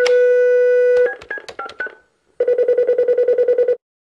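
Telephone sound effect: about a second of steady dial tone, then a few short beeps of a number being dialled, then the phone ringing with a fast pulsing tone for about a second and a half.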